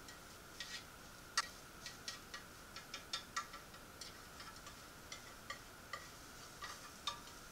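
Chopsticks tapping and scraping against a rectangular tamagoyaki pan while a thin layer of egg omelette is rolled up: a string of light, irregular clicks, the sharpest one about a second and a half in.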